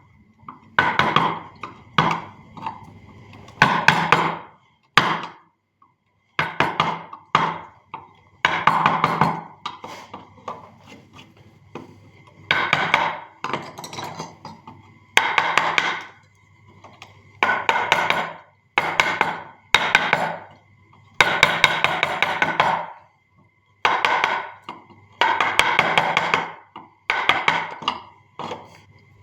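Wood being hand-carved with a chisel struck by a mallet: quick bursts of rapid taps, each burst about a second long, with short pauses between them.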